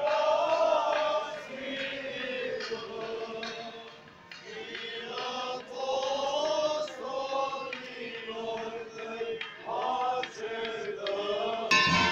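Male voices chanting an Eastern Orthodox hymn, a slow melody that rises and falls. Near the end, church bells suddenly begin to ring.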